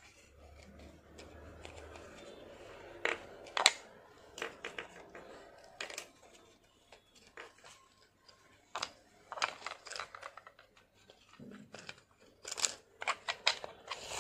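Plastic parts of a Prestige hand chopper's lid being handled and turned to tighten the pull-cord spring: irregular small clicks, scrapes and rubbing, busier and louder near the end.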